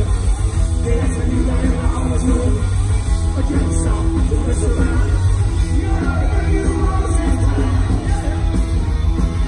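Punk rock band playing live and loud: distorted electric guitar, bass guitar and drums, with a singer's voice over them.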